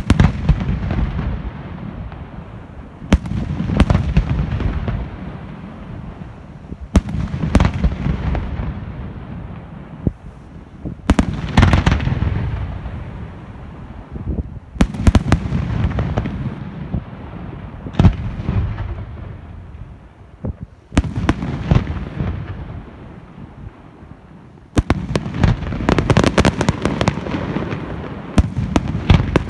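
Aerial firework shells bursting in a pyrotechnic display: a loud report every few seconds, each dying away in a low rumble, then a rapid volley of many reports near the end.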